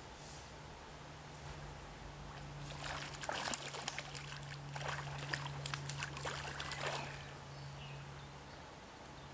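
Hooked brown trout splashing and thrashing at the river surface: a quick crackle of splashes from about three seconds in, dying away about seven seconds in.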